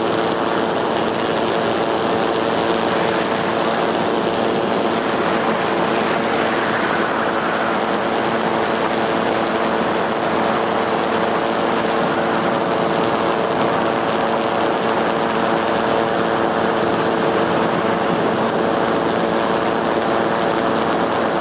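Steady drone of an aircraft's engine and propeller heard from on board, several held tones over a broad rushing noise, unchanging throughout.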